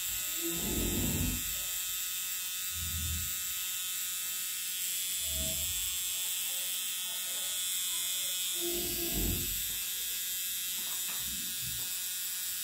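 Corded rotary permanent-makeup (tattoo) pen running with a steady high-pitched electric buzz while its needle works pigment into an eyebrow.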